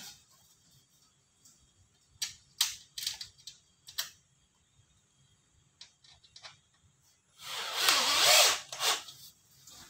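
Handheld power drill run into the overlapping sheet-metal seam of an insulation-jacketing elbow, one burst of about a second and a half near the end. Before it come a few light clicks and rattles of the sheet-metal segments being fitted together by hand.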